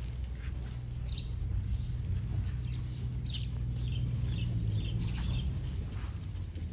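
Small birds chirping in short, repeated calls over a steady low rumble.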